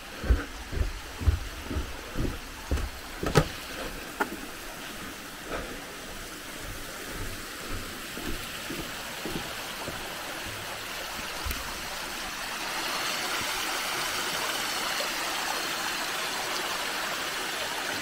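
Footsteps on a forest path, about two a second, for the first several seconds, over the steady rush of a mountain stream that grows louder in the second half.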